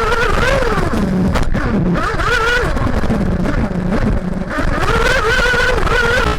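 Kyosho MP9 TKI4 1/8-scale nitro buggy's tuned Max Power Storm nitro engine, heard onboard, revving up and down as the throttle is worked around the track. Its pitch rises and falls several times, with a sharp dip about one and a half seconds in.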